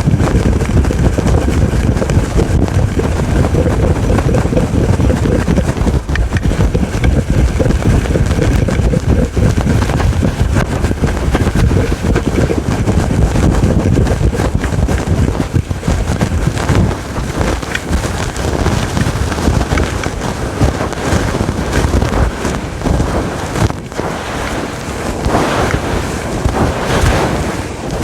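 Fingers scratching and rubbing a fluffy windscreen microphone cover fast and hard: a loud, continuous rough rustling with a heavy low rumble. Near the end the scratching turns a little lighter and brighter.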